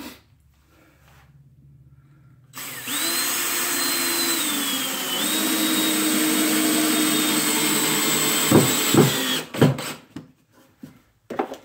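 Cordless DeWalt drill running for about seven seconds as it countersinks a screw hole in a wooden block. It gives a steady motor whine whose pitch drops a little about halfway through, then stops with a few sharp clicks.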